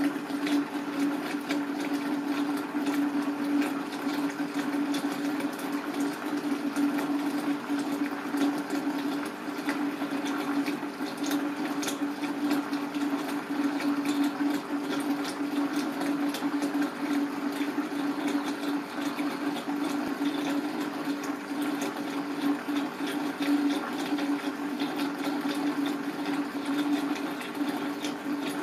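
Running water with a steady low hum, flecked with fine ticks throughout.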